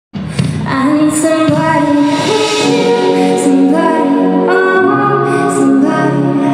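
Background music with singing: held sung notes over a backing track, cutting in sharply right at the start after a brief gap.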